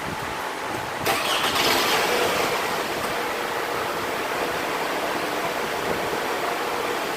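2003 Toyota Camry engine starting about a second in and settling into a steady idle. The mass airflow sensor is unplugged and the intake snorkel boot is off, so the engine computer has put it into its default idle.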